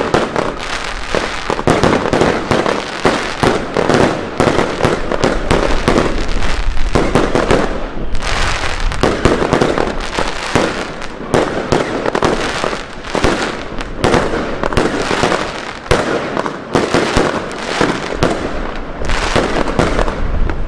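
Aerial fireworks bursting overhead in rapid succession: a dense, continuous barrage of bangs and pops, with brief lulls about eight, thirteen and sixteen seconds in.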